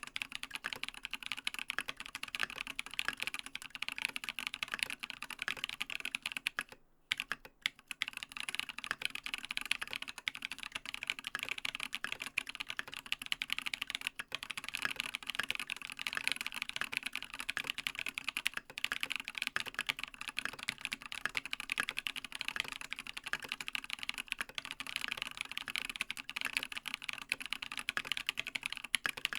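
Fast, continuous typing on a TX87SE mechanical keyboard with a brass plate, lubed Holy Panda tactile switches and Matt3o MT3 Dev/tty keycaps, with no sound dampening. Typing stops briefly about seven seconds in, then carries on.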